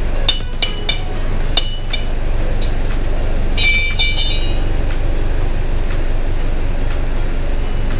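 Metal gearbox parts clinking together several times, with one brighter ringing clink about three and a half seconds in, over a steady low hum.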